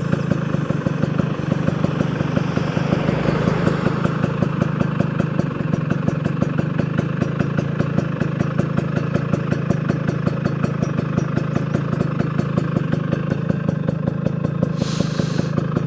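A two-stroke motorcycle engine idling steadily with an even, rapid beat.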